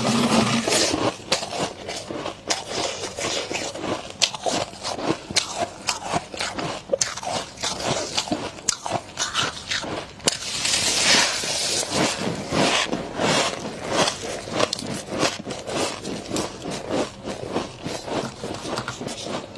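Biting and chewing of freezer frost built up from humidifier moisture: a dense, unbroken run of crisp crunches, with a louder, hissier stretch about ten seconds in.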